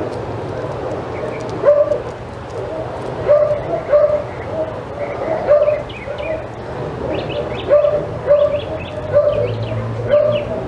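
A dog barking over and over in short barks, one or two a second, with birds chirping faintly behind it.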